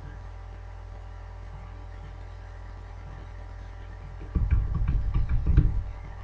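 Steady electrical hum made of several steady tones, which the recordist calls static. About four seconds in, a loud burst of low rumbling with knocks and rattles lasts about a second and a half, then cuts off.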